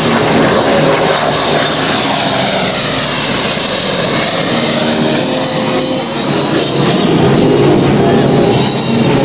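Propeller-driven World War II fighters flying past, a steady engine drone whose tone sweeps as an aircraft passes over, about the middle.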